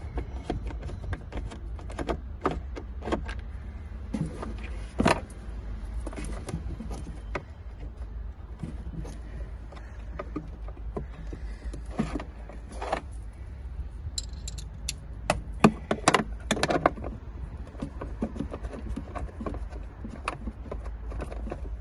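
Metal clinks and rattles of a socket wrench and the loosened battery hold-down bolt being worked by hand in a plastic battery compartment, with a quick run of clicks about three-quarters of the way through, over a steady low rumble.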